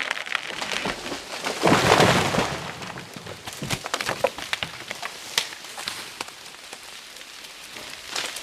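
A felled poplar coming down: branches cracking and snapping, a loud crash about two seconds in, then scattered cracks and a pattering of falling twigs and debris.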